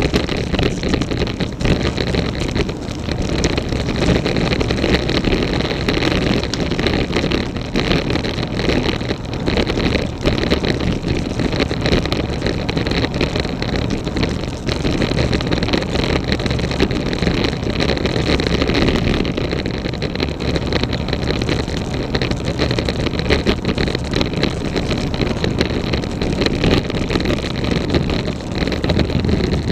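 Road bike being ridden, with wind and road noise on the action-camera microphone and frequent clicks and rattles from the bike. The louder knocks come from the top tube bag; the clicking has a cause the rider cannot find.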